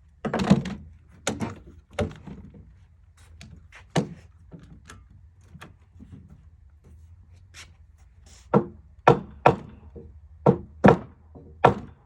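A series of sharp knocks and thunks on timber, as the framing studs are struck and handled: a few loud ones at the start, lighter scattered taps, then a run of six loud knocks about two a second near the end.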